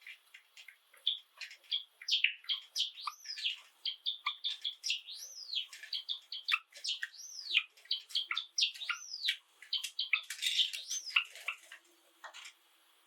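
Java sparrow singing: a long run of quick clicks mixed with arching whistled notes, breaking off about a second before the end.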